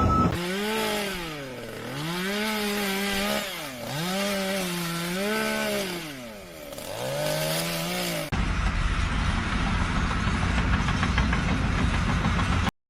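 A power tool's motor running, its pitch sagging and recovering three times as if it is loaded and freed while cutting. It then switches suddenly to a louder, steady grinding or sawing noise with a low hum, which cuts off abruptly near the end.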